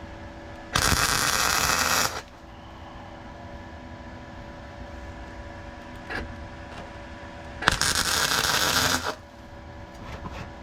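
Two short bursts of welding on a car's steel sill, each about a second and a half long and about six seconds apart, with a dense crackle. A steady hum runs underneath them.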